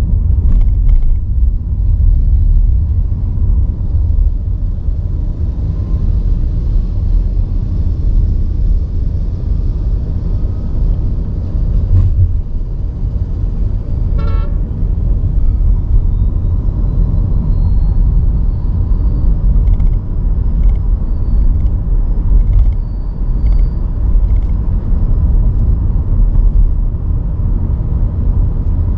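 Steady low rumble of a car driving on city roads, with a short car horn toot about halfway through.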